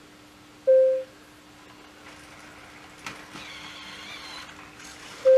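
Sony aibo ERS-311 robot dog giving short electronic beep tones, one about a second in and another at the very end, answering its name being called. A steady low hum runs under it.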